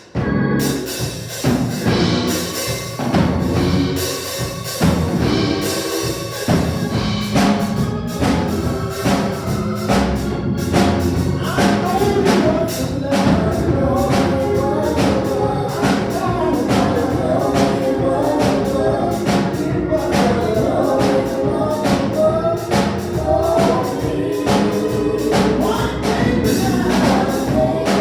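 Church praise team playing gospel music with a steady beat, singers' voices coming in more strongly about twelve seconds in.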